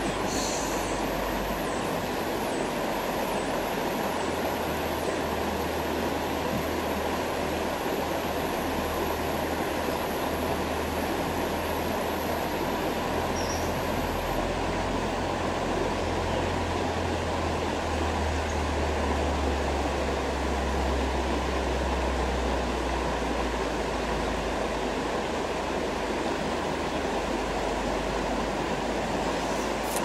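Steady rushing of a shallow river running over rocks, with a low rumble underneath that swells and fades.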